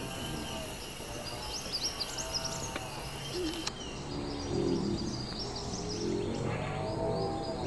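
Forest ambience: several birds chirping and calling over a steady high insect drone, whose highest band cuts out about halfway through.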